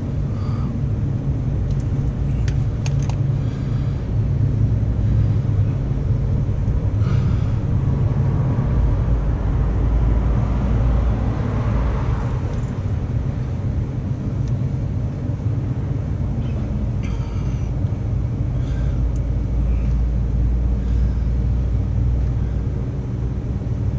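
A steady low rumble, like a vehicle engine running, with a few faint ticks.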